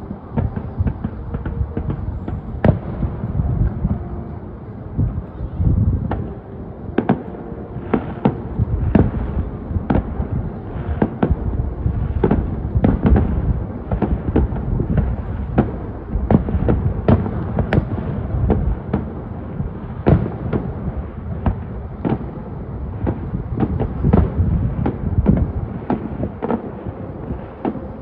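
Fireworks display going off: a rapid, unbroken series of sharp bangs and deeper booms over a continuous low rumble.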